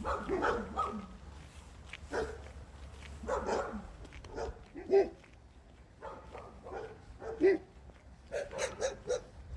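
A dog barking in short bursts, irregularly spaced.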